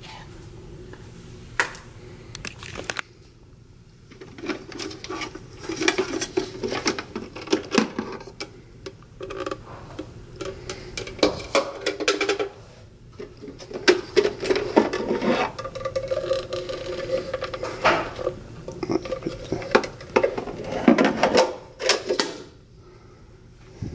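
Clicking, knocking and clatter of ceramic mugs, coffee capsules and a Nespresso coffee machine being handled, with a low steady hum behind.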